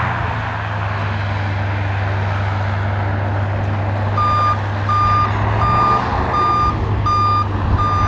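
Airboat engine and propeller running with a steady low drone. From about halfway through, a backup alarm beeps six times at an even pace, a little over one beep a second.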